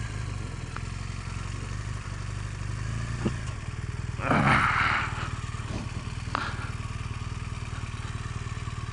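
Motorcycle engine running steadily at low speed or idle, with a brief louder rush of noise about four seconds in and a couple of faint clicks.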